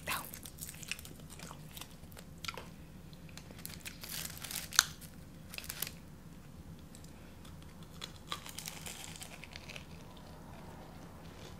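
Paper wrapper of a fried apple pie crinkling and tearing, with crisp crunching of the pastry crust being bitten and chewed. Scattered small crackles, with a sharp crackle about five seconds in.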